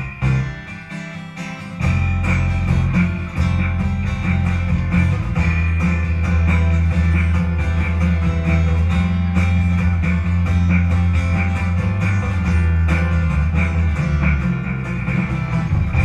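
Small live band playing without vocals: electric bass guitar and strummed acoustic guitar together with other instruments. The bass drops out for a moment near the start, then comes back in.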